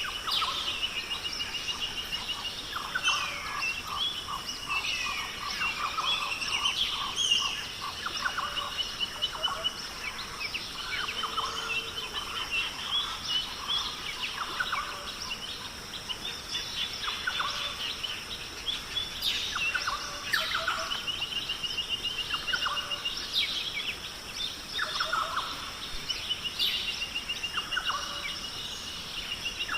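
Many birds calling and singing at once, with short chirps and repeated rapid trills overlapping throughout, over a steady high hiss.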